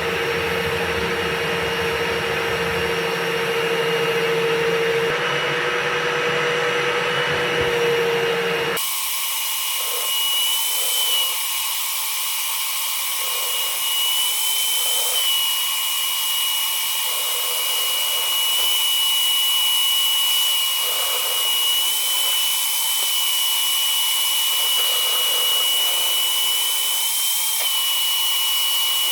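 Battery-powered drill spinning a rotary dryer vent brush through the duct: a steady high-pitched motor whine. About nine seconds in, the low rumbling part of the sound cuts off abruptly and the whine continues on its own.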